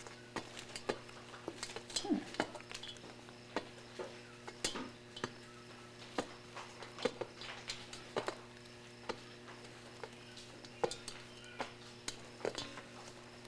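Ostrich chicks' beaks pecking and tapping against a metal pan as they pick insects out of it: irregular sharp clinks, sometimes several close together. A steady low hum runs underneath.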